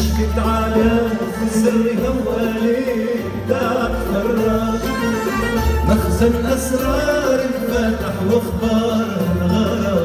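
Arabic orchestra playing live, with ouds, a qanun and violins together and voices singing.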